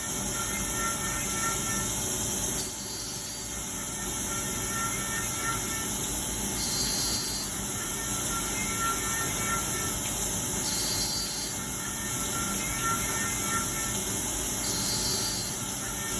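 CNC machining centre running while cutting metal: a steady hiss and rumble, with faint whining tones that come in for about a second roughly every four seconds as the tool cuts.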